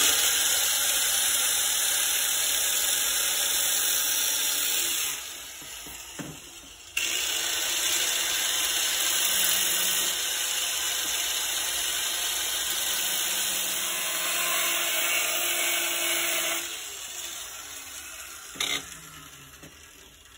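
Small angle grinder cutting through the plastic housing of a Cuisinart SCO-60 electric can opener. It cuts steadily for about five seconds, eases off for a couple of seconds, then cuts again for about ten seconds before winding down, with one brief flare as it slows.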